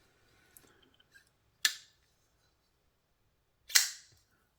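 TWOSUN TS328 folding knife's blade being flicked on its freshly reassembled pivot: two sharp snaps about two seconds apart, the second the louder, with a few faint ticks before them.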